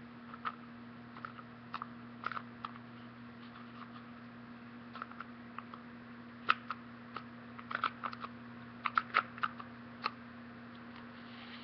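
Hard plastic Eggies egg-cooker parts clicking and tapping as they are handled and fitted together, with scattered light clicks at first and a run of sharper ones in the second half. A steady low hum runs underneath.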